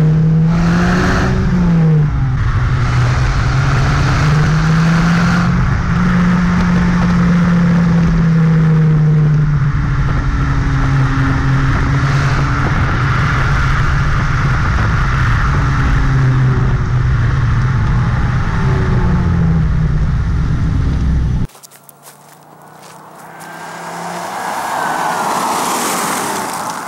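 Exhaust of an MK5 VW Jetta's 2.5 L five-cylinder engine, with the rear muffler deleted and Monza dual tips with built-in resonators fitted, running with a deep note that rises and falls as the engine speeds up and slows. About 21 seconds in it cuts off suddenly, and a vehicle passes by, swelling and then fading near the end.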